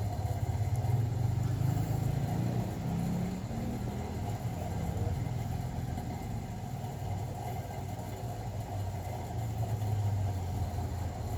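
A steady low mechanical hum, its pitch rising briefly two to three seconds in.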